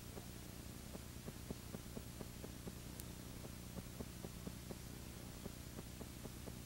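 Steady low electrical hum with hiss, and faint rapid clicks several times a second: a blank stretch of the soundtrack.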